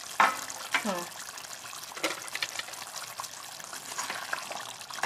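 Chicken curry gravy boiling hard in an aluminium pot, a steady bubbling and popping. Two brief sharper sounds come in the first second, and a ladle stirs the gravy near the end.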